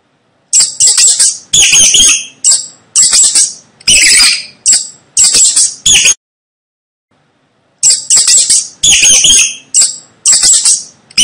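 Mouse squeaking: rapid, high-pitched chirping squeaks in quick runs of about two a second, with a pause of about a second and a half partway through before the squeaking resumes.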